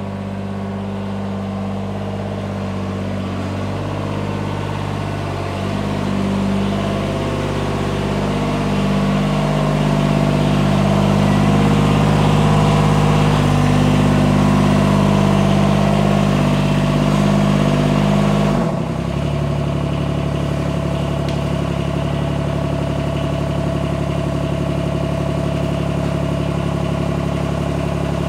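John Deere 332 garden tractor's 16 hp three-cylinder Yanmar diesel engine running steadily as the tractor is driven in, growing louder. About two-thirds of the way through the engine note changes abruptly and settles into a steady idle.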